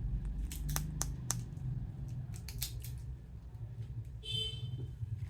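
Plastic toy figure being handled: a run of sharp clicks and taps over the first three seconds, then a brief high squeak about four seconds in, over a steady low hum.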